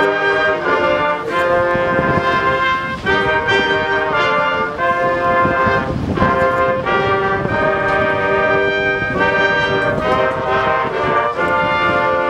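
High school marching band playing loudly: full brass chords held for a second or so each and changing throughout, over drum hits.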